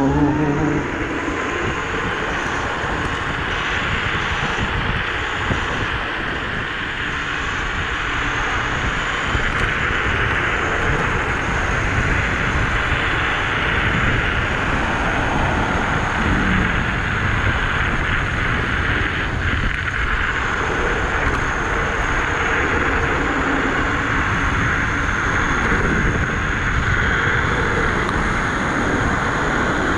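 Steady wind rush over the microphone with road and tyre rumble from an electric scooter riding at speed.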